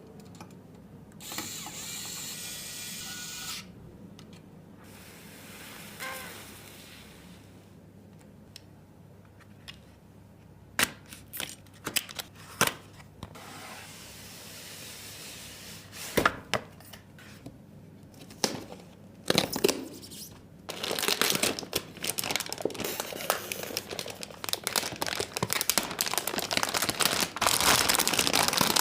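PC assembly handling sounds: a small power screwdriver runs for about two seconds, then scattered sharp clicks and knocks as parts are fitted, building into dense clicking and clatter over the last several seconds.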